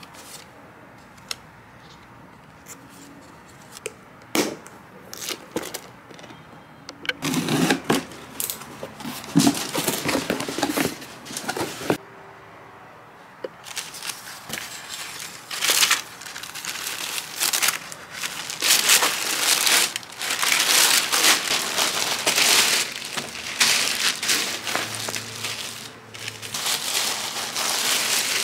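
Tissue paper and garment wrapping rustling and crinkling as a box of clothes is unpacked by hand. A few light clicks come first, and the crinkling starts about a quarter of the way in, pauses briefly, then runs on densely.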